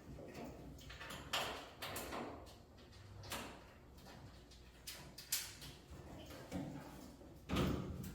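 Dryer cabinet parts and panels being handled in a repair: a series of irregular scrapes and knocks, the loudest near the end.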